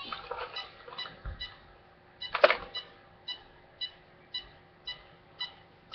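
Traxxas VXL electronic speed control beeping through the motor while it is powered up with the transmitter's throttle held: a short run of stepped start-up tones, a sharp clack about two and a half seconds in, then short high beeps about two a second.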